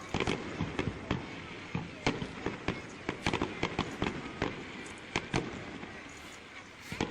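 Fireworks bursting overhead: a dense, irregular run of sharp cracks and pops, some in quick clusters, heard through a smartphone microphone.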